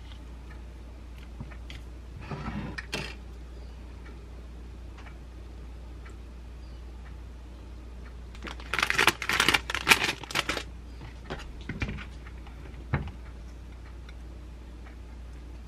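Kitchen handling sounds as a salad is put together in a ceramic dish: a short soft rustle, then a busy run of sharp clicks and clatters from a small plastic container and utensils, the loudest part, followed by a few single taps.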